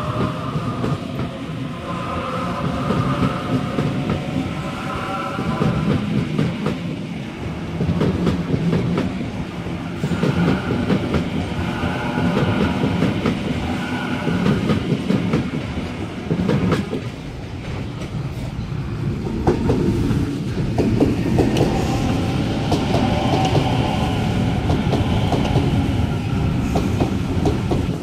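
Sydney Trains double-deck electric passenger train running close past a station platform: a steady rumble of wheels on rail with repeated clickety-clack over the joints and a whine in several tones.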